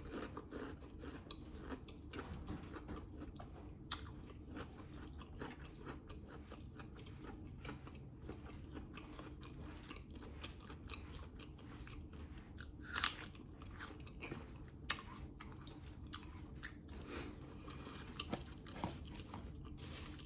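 A person chewing and biting food close to the microphone: steady wet chewing with many small mouth clicks, and a few sharper crunches, the loudest about 13 seconds in.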